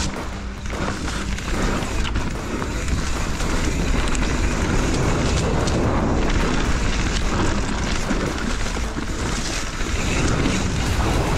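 Wind rushing over the microphone with the rattle and clatter of a mountain bike riding fast over rough trail.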